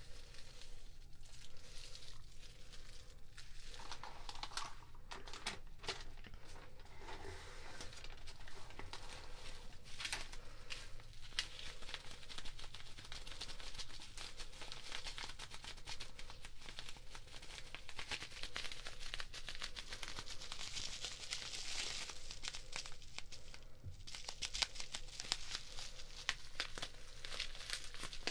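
Crinkling of packaging material: a dense run of small crackles that gets busier after about twelve seconds.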